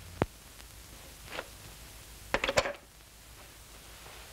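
Brief handling noises at a wardrobe as clothes are pulled out: a sharp click just after the start, then a quick cluster of knocks and clicks a little past halfway, over a faint steady hiss.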